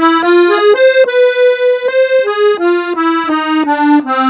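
Gabbanelli button accordion tuned in F, playing an ornamental melodic run in E-flat. It is a quick string of notes, with one note held for about a second near the start.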